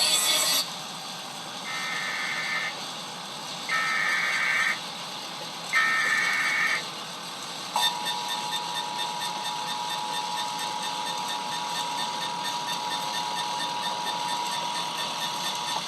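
Emergency Alert System broadcast heard through a van's FM radio: three roughly one-second bursts of SAME header data tones, evenly spaced, then a steady two-tone attention signal that starts about eight seconds in and holds for about eight seconds. Together they announce a tornado warning.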